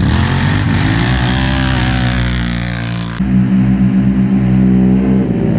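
Off-road racing engine pulling hard at full throttle, its pitch climbing steadily. About three seconds in, the sound cuts abruptly to a louder engine held at steady high revs.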